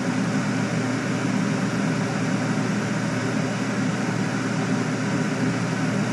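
Steady, unchanging machine whirring, heaviest in the low range, as from a running fan or motor.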